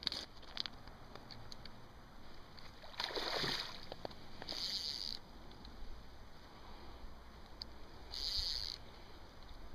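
Three short splashes on the river surface, about three, four and a half and eight seconds in. The first is the fullest, and the first and last are the loudest.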